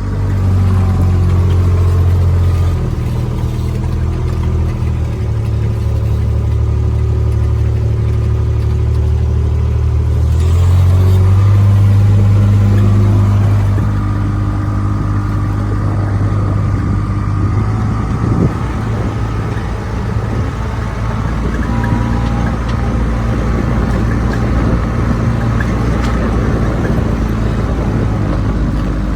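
Engine of a Kubota farm vehicle running steadily while driving, a low hum whose revs step up and down several times and are highest a little before the middle.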